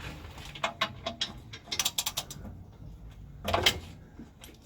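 Hand ratchet wrench clicking in short quick runs, with metal clinks and a louder clunk about three and a half seconds in.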